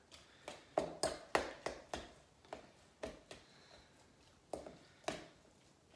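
A utensil tapping and scraping against a stainless steel mixing bowl while mashing and flaking canned mackerel: irregular sharp clicks, a few a second, thickest in the first two seconds.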